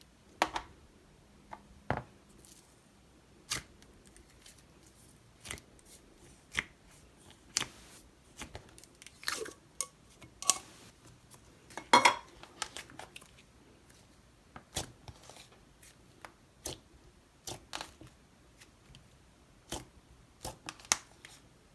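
Butter slime (slime mixed with a little clay) being poked, pressed and stretched by hand, giving scattered, irregular sharp clicks and pops, a few louder ones about two, twelve and fifteen seconds in.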